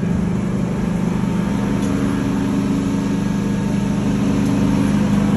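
An engine running steadily at a constant idle, giving an even low hum.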